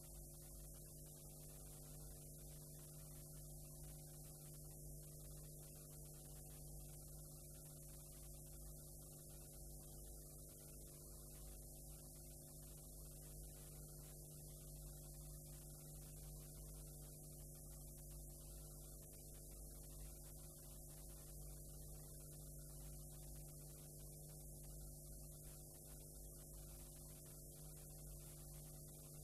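Near silence: a faint, steady electrical hum with hiss from a blank stretch of videotape.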